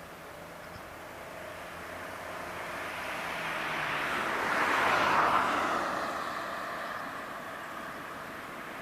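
A car passing by: a rush of road noise that swells to a peak about five seconds in and then fades away.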